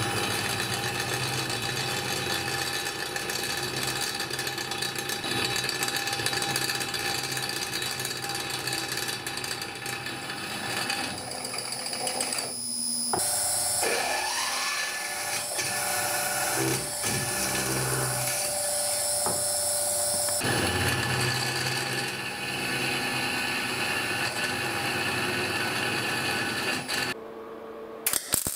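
A milling machine's spindle runs with a twist drill boring into the steel top plate of a welded water-cooling box. Near the end comes a short crackle of MIG welding.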